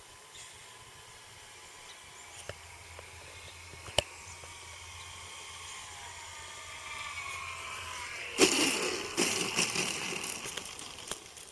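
A radio-controlled model airplane flying, with a faint whine whose pitch falls as it passes. About eight seconds in, a loud rushing noise comes in and fades over the next few seconds. There are a couple of sharp clicks earlier on.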